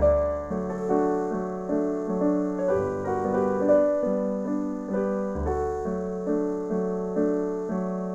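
Piano music, a steady run of notes struck about twice a second over changing bass notes.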